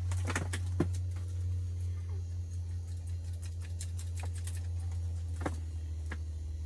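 Scattered light clicks and ticks from handling a small ice-fishing rod and spinning reel, over a steady low hum. There is a quick run of clicks at the start, another cluster a few seconds in, and two single clicks near the end.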